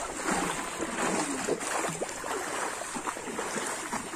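Water sloshing and splashing around legs wading step by step through knee-deep floodwater.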